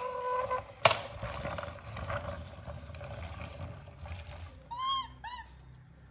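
Baby monkey scuffling over cardboard and a hard floor, with a sharp knock about a second in, then two short squeaks near the end, each rising and falling in pitch. A brief steady whine is heard at the very start.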